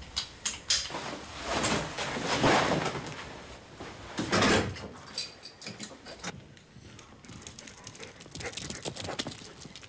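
Clothes and bags rustling as they are handled and rummaged through, in two longer swells, with scattered small knocks and clicks.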